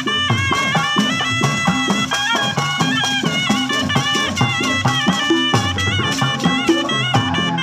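Sundanese tarompet, a double-reed shawm, playing a reedy, ornamented melody with bending notes over kendang drums beating a fast, steady pattern.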